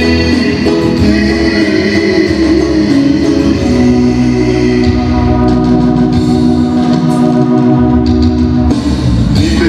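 Loud music with long, held organ-like keyboard chords over a low beat, the chords shifting a few times.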